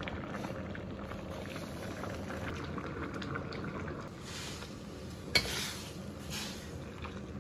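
Noodle soup boiling in a wok, a steady bubbling hiss. After about four seconds, soup is ladled into bowls in two splashy pours, with one sharp clink between them.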